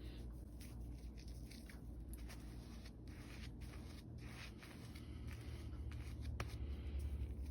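Shaving brush working soap lather in a shave bowl: faint soft squishy crackling with light clicks, and one sharper click about six seconds in, over a low steady hum.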